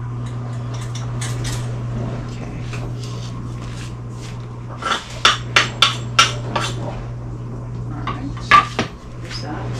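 A bread knife and wooden cutting board being handled on a kitchen countertop, clattering in a quick run of about six sharp knocks about halfway through and a couple more near the end. A steady low hum runs underneath.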